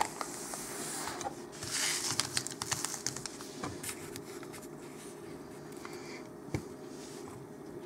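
Sealed foil booster-pack wrappers crinkling and rustling as the packs are pulled from a cardboard display box and laid down, with light taps and clicks. Busiest in the first three seconds, then quieter.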